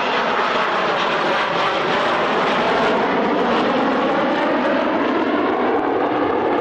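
Jet noise from a Nimrod MR2's four Rolls-Royce Spey turbofans as the aircraft flies a display pass, a steady loud rush.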